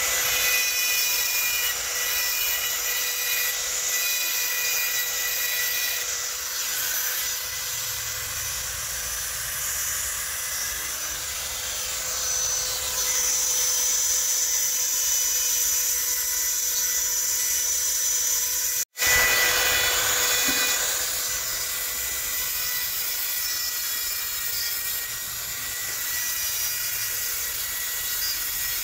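Handheld high-speed rotary engraving tool whining steadily as its pointed bit grinds fine lines into black stone. The sound cuts out for an instant about two-thirds of the way through.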